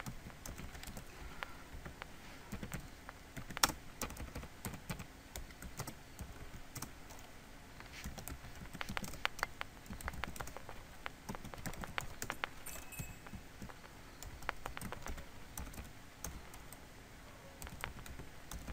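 Typing on a computer keyboard: irregular runs of key clicks, with one sharper click about four seconds in.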